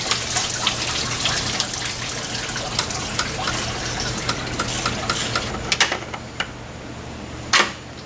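Pink coolant running and splashing out of a Toyota 2UZ-FE V8 as its water pump is being removed: a steady pour for about five and a half seconds that then dies away. A few sharp clicks follow, the loudest near the end.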